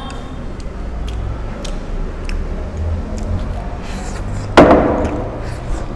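A single sharp knock on a tabletop a little past two-thirds of the way through, over a low steady rumble and a few faint clicks.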